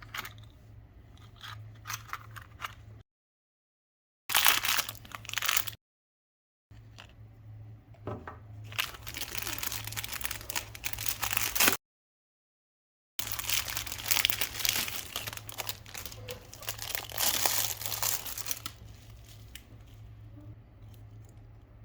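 Plastic packaging being crinkled and torn open, a dense crackling with sharp crunches. It comes in several stretches cut off by sudden silent gaps, over a faint steady low hum.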